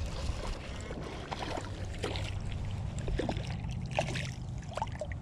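Northern pike thrashing in shallow water at the bank as it is landed: a run of irregular splashes and sloshes, over a low rumble of wind on the microphone.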